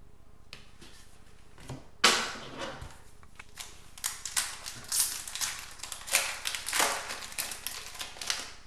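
Foil wrapper of a hockey trading-card pack being torn open and crinkled by hand: a run of sharp crackles and rustles that starts about two seconds in.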